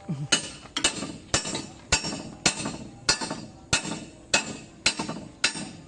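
A hammer striking steel on an excavator's track, about ten evenly paced blows a little under two a second, each leaving a bright metallic ring.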